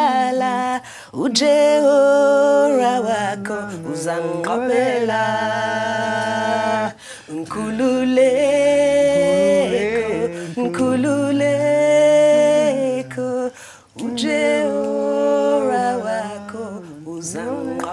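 A woman singing a cappella: long held notes that waver and slide in pitch, in three phrases with short breaks between them.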